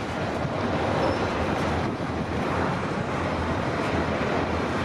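Freight cars of a passing CPKC train rolling by, a steady rumble of steel wheels on the rails.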